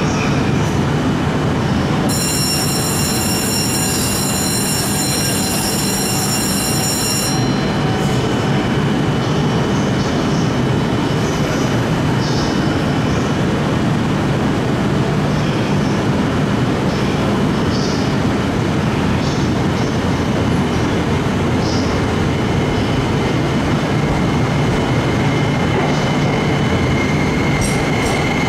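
E261 series Saphir Odoriko electric train standing at the platform, its equipment humming steadily; about two seconds in, a high-pitched electronic tone sounds steadily for about five seconds. Near the end the train pulls away, with clicks and a rising whine as it gathers speed.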